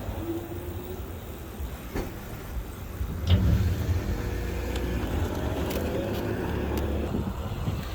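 Wind rumbling on the microphone during a ride, with a steady motor hum through the middle few seconds and a couple of sharp clicks.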